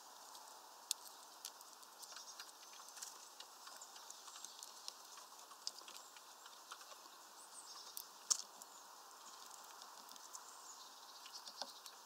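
Irregular sharp clicks and taps of a tit pecking at peanuts through a wire-mesh feeder, one louder tap a little after the middle, over a faint steady hiss.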